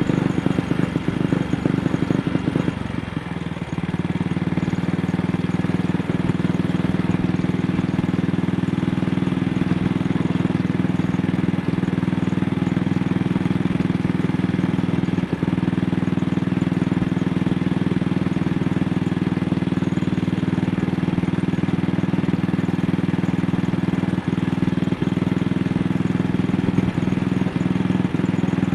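AJS Model 8 single-cylinder motorcycle engine running under way while misfiring. The engine note drops about three seconds in and then holds steady, with a few brief stumbles later on.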